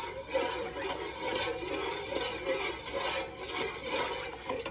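A metal ladle stirring sweetened coconut milk round a large aluminium pot, scraping along the bottom and sides, with the liquid sloshing, in repeated strokes.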